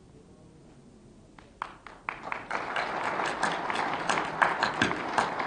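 Audience clapping: after a short lull, a few scattered claps come in about a second and a half in and quickly build into steady applause.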